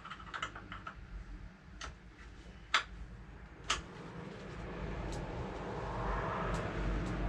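Sharp metallic clicks of a spanner on a motorcycle's rear chain adjuster nuts: a quick cluster of light ticks, then single louder clicks every second or so, with a rustling hiss building up in the second half.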